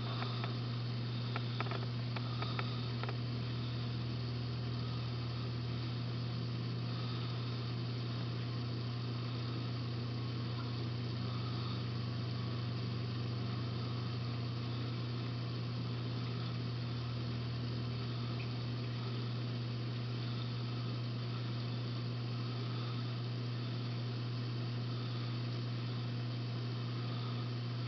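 Steady low hum of reef aquarium pumps, under an even hiss of moving water and bubbles. A few faint clicks come about two seconds in.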